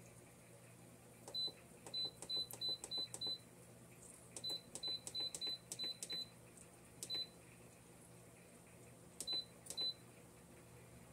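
Instant Pot Duo control panel beeping once for each press of its + button: fifteen short high beeps, in two quick runs of six, then one, then two, as the cook time is stepped up a minute per beep from 45 minutes to an hour.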